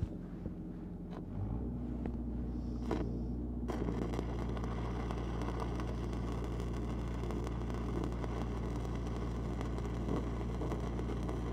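Stick-welding arc of a 5/32-inch E8010 rod striking up about four seconds in, then burning with a steady harsh crackle, over the constant drone of a Lincoln SAE 300 engine-driven welder.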